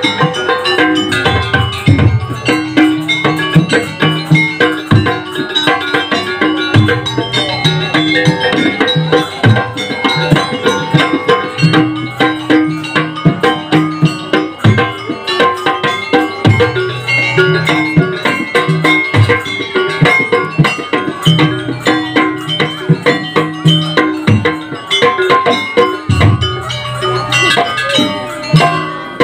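Live jaranan gamelan music playing a sampak: drums beating a fast, steady pattern under ringing bronze gong-chime instruments.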